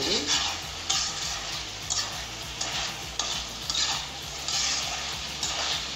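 Chicken pieces and green chillies frying in oil in a kadai, sizzling steadily, while a spatula stirs and scrapes them in strokes about once a second. The chicken is being fried down until the oil separates.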